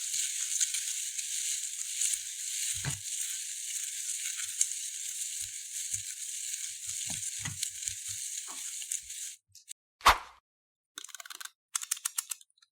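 Crunchy foam-bead floam slime being pressed and worked, giving a dense, steady crackle of popping beads for about nine seconds. It stops, and then come a single sharp snap and a quick run of small clicks.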